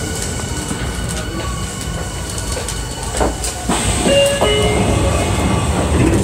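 Tokyu 3000 series electric train running, heard from inside the car: a steady rumble of wheels on rails with a few clicks. About four seconds in there are short whining tones that change pitch in steps.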